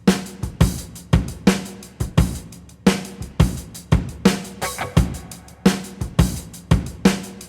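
Rock music: a drum kit beat with kick, snare and cymbals, hits coming about twice a second.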